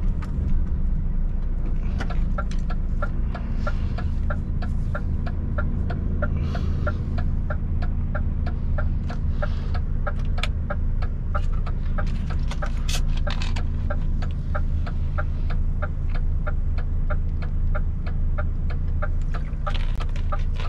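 Truck's turn-signal relay ticking evenly, a little over two ticks a second, starting about two seconds in, over the steady drone of the truck's diesel engine.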